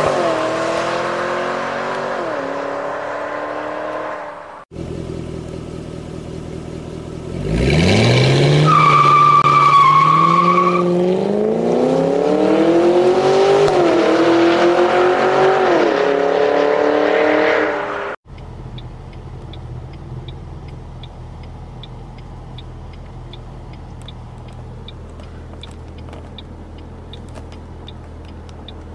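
Ford Mustang Shelby V8 on its factory Shelby muffler pulling away, its engine note falling. After a cut, the same car on a Corsa stainless cat-back exhaust accelerates hard, revs climbing through the gears, with a high squeal about nine seconds in. From about eighteen seconds in, a much quieter steady engine hum heard inside the cabin on the factory muffler, with faint ticking about twice a second.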